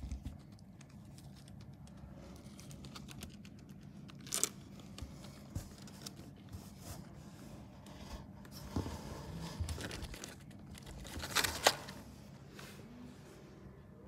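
Light scratching, rustling and scraping on a cardboard box floor as rabbits shift about and are handled, with scattered small clicks. The louder scrapes come about four seconds in and in a cluster near eleven and a half seconds.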